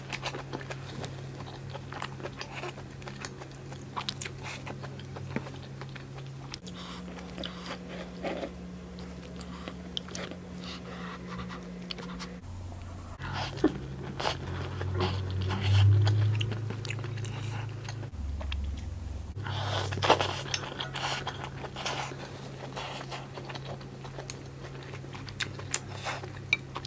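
Close-miked chewing and crunching of hotpot food, with wet mouth clicks throughout over a steady low hum.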